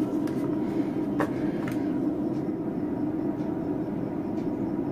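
Bass output of a rewired Sony home-theatre amplifier playing through its speaker as a steady low sound, the sign that the repaired bass channel now works. A few short clicks in the first two seconds, the loudest about a second in.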